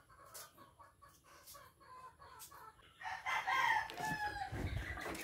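A rooster crows loudly about three seconds in, one long call over faint clucking. Before it there are faint, light taps, and a low handling rumble comes under the end of the crow.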